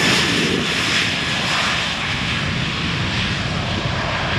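Airbus A330 twin-jet airliner's engines running loud as it rolls along the runway past and away, the noise easing slightly.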